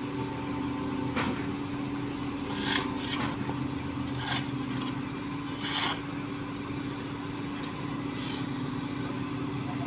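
Diesel engine of an XCMG truck crane running steadily at low revs, with several short sharp noises over it about 1, 3, 4, 6 and 8 seconds in.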